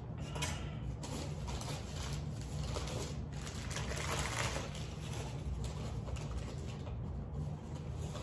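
Rustling and crinkling of packing material as it is handled and pulled out of a cardboard shipping box, in an irregular run of small noises.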